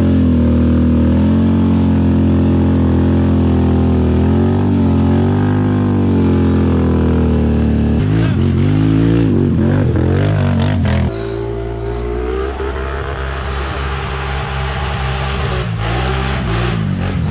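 ATV engine revving hard while clawing up a steep dirt slope, its pitch wavering up and down. The sound changes suddenly about eight seconds in and drops in level about three seconds later.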